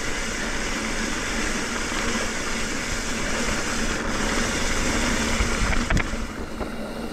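Mountain bike rolling fast downhill on a dirt singletrack trail: a steady rush of wind on the microphone and tyre noise, with one sharp knock about six seconds in as the bike hits a bump.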